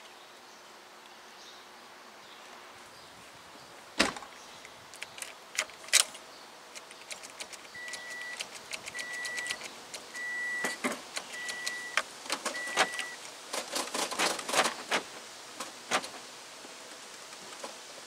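Two sharp knocks, then five short, evenly spaced beeps of a car's warning chime, followed by a run of keys jangling and clicking. This is the key being worked in the ignition of a 2006 Toyota Corolla whose starter does not crank.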